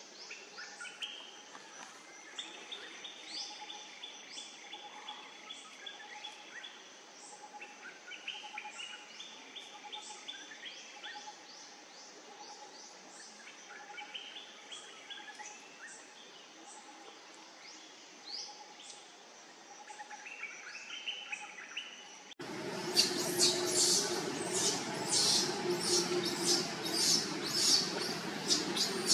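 Wild birds chirping, with runs of short falling chirps over a quiet steady background. About 22 seconds in, the sound cuts abruptly to a louder, dense run of sharp, rapid, high-pitched chirps.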